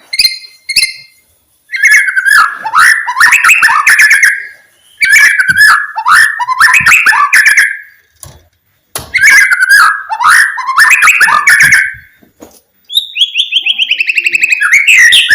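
White-rumped shama (murai batu) singing loudly: a few short notes, then three rich, warbling phrases of about three seconds each with short pauses between them, and near the end a fast run of notes falling in pitch.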